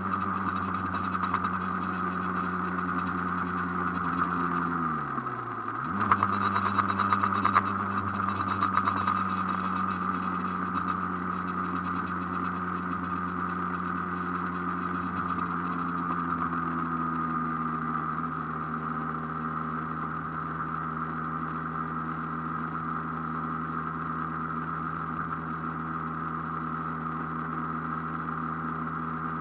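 Aprilia AF1's two-stroke engine running at steady cruising revs while riding. About five seconds in the engine note dips sharply for a moment and then picks straight back up, and later it settles a little lower.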